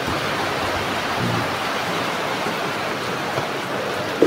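Steady rain falling, an even hiss with no separate strikes standing out.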